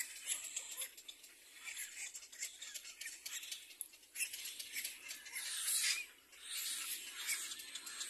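Little black cormorant chicks in the nest giving raspy, hissing begging calls in irregular bursts, the longest lasting nearly two seconds about halfway through.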